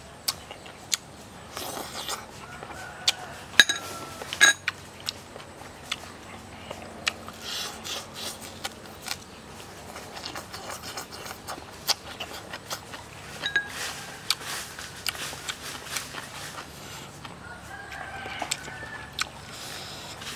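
Close-up eating sounds: chewing and crunching on fish and fresh spring onion, with sharp clicks of chopsticks and a fork against a metal tray, loudest about three to four seconds in. Chickens cluck and crow faintly in the background a few times.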